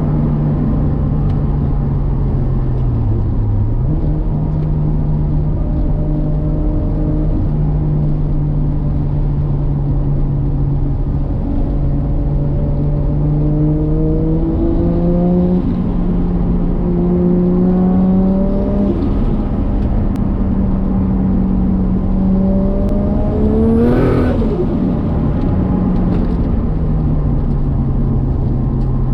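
Modified Nissan Skyline R33's turbocharged RB25DET straight-six running under way, its note mostly steady with several slow climbs in pitch as it pulls. About 24 seconds in the revs rise sharply and drop away, with a brief high-pitched sound above them.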